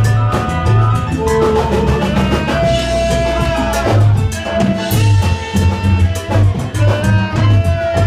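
Live Cuban dance band playing salsa-style music, with a steady bass line and drums.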